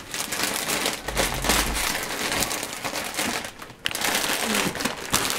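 Christmas gift-wrapping paper crinkling and rustling as presents are unwrapped and handled, with a brief lull about three and a half seconds in.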